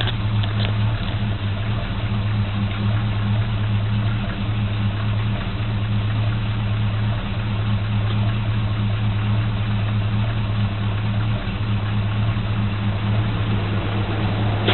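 1984 GMC pickup's engine idling steadily through Dynomax Turbo mufflers on a 2 1/4-inch dual exhaust with an H-pipe, giving an even, deep exhaust drone. The engine is warming up after a cold start, settling into its normal idle.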